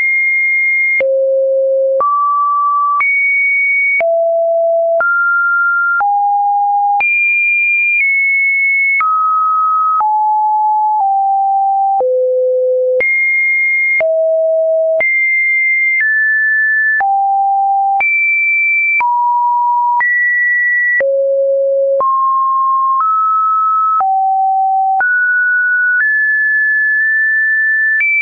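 Computer-generated sine-wave test beeps: a single pure tone that jumps to a new pitch about once a second, hopping up and down at random between a mid and a fairly high pitch, with a faint click at each change.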